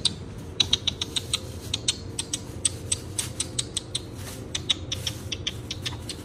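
A person making quick kissing clicks with the lips, several a second in uneven runs, calling a cat.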